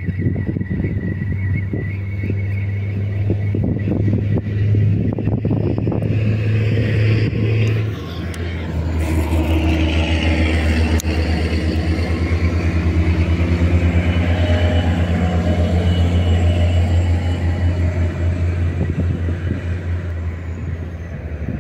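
A motor engine running steadily, its low hum dropping to a lower, pulsing pitch about eight seconds in.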